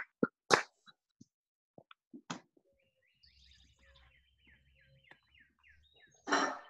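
A few scattered sharp claps, then a bird faintly chirping in a quick run of short falling notes, about four or five a second, for a couple of seconds. A short noisy burst comes near the end.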